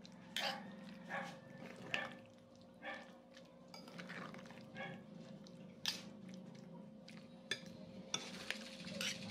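Spoon clinking and scraping against a small bowl as tofu sisig is stirred with mayonnaise, in short irregular knocks, over a faint steady hum.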